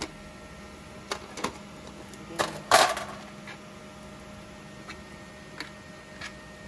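3D-printed plastic parts clicking and knocking against each other and against the flexible steel build plate as they are taken off it, with a louder knock that rings briefly nearly three seconds in, then a few lighter ticks. A faint steady hum sits underneath.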